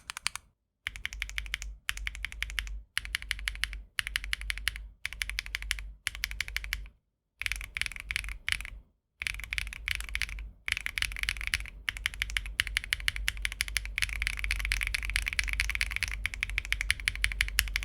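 Rapid typing on a mechanical keyboard fitted with KTT Hyacinth linear switches (PC top housing, nylon bottom, POM stem, 56 g): fast runs of keystrokes about a second long with short pauses between them, then unbroken typing for the last several seconds.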